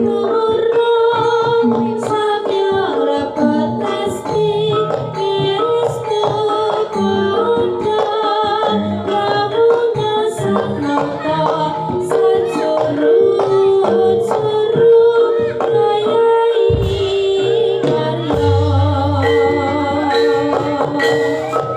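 Javanese gamelan music accompanying a jaranan horse dance: a singer's wavering melody over held melodic notes and frequent drum and gong strokes.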